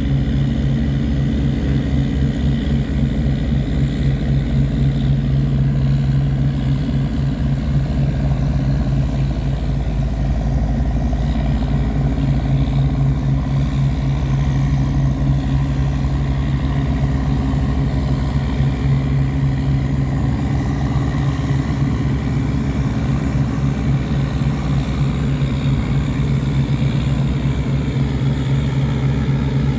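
Tugboat engine running steadily under load, a deep even drone, while the tug tows loaded cargo barges upstream against a flood current.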